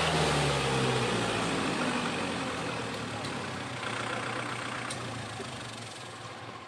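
Kubota tractor's diesel engine running. Its pitch drops over the first second or so as it throttles back, then it runs lower and grows gradually quieter.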